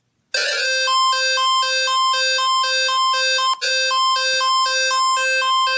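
Emergency Alert System (EAS) alarm: a loud, buzzy electronic tone alternating between a low note and a higher note about twice a second. It starts abruptly about a third of a second in and breaks off for a moment a little past halfway.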